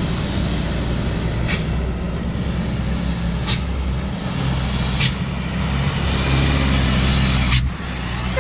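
Diesel engine of a white box truck approaching and passing close, getting louder about six seconds in. Four short sharp hisses cut through the engine note.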